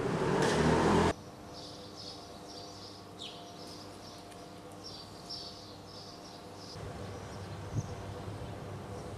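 A car passing close along the street for about a second, cut off suddenly. After that, quiet street ambience with small birds chirping repeatedly, and a single sharp click near the end.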